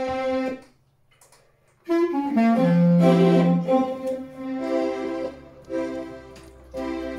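Clarinet playing a slow, free melodic phrase: a held note that stops, a pause of about a second, then a falling run down to a loud low note, followed by more held notes with ornaments.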